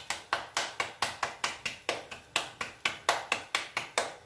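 Hands patting and slapping stuffed paratha dough, a quick, even run of sharp slaps at about five a second that stops near the end.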